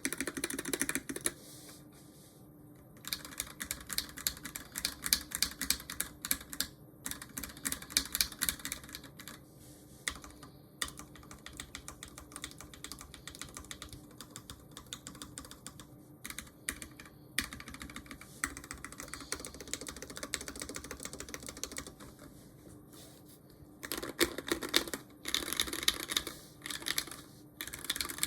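Custom 60% mechanical keyboard (Tofu60 case, DZ60RGB V2 PCB, lavender switches) being typed on: bursts of fast typing separated by pauses, with slower, scattered keystrokes through the middle.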